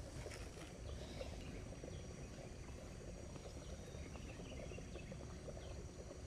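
Faint outdoor ambience: insects keep up a thin, steady high-pitched drone over a low, even rumble.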